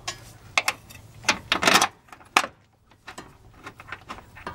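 Metal clicks and knocks from a new front upper control arm being wiggled into its mount on a 2008 Hyundai Sonata while its bolt is worked in, with a short scrape and the sharpest click a little past halfway, then lighter ticks.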